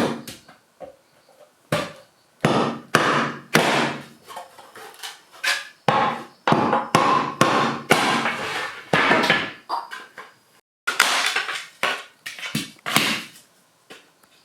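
Bamboo being struck and split: an irregular run of sharp woody knocks and cracks, some drawn out into a crackle lasting about half a second.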